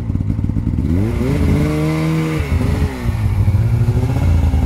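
Snowmobile engine running. It revs up about a second in, holds for a moment, then drops back to a lower, rumbling speed about halfway through.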